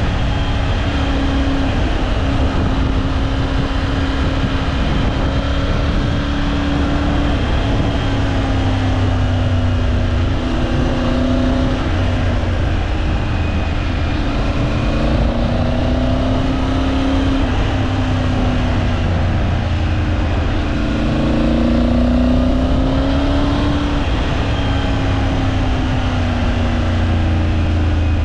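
Triumph Tiger 900 Rally Pro's three-cylinder engine heard from the bike while riding, its note rising and falling repeatedly with the throttle through a series of bends, over a steady rush.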